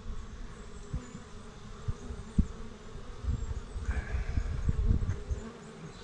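Honeybees buzzing in a steady hum around an opened hive as frames are lifted out, with low rumbles and a few dull knocks from the wooden frames being handled against the box.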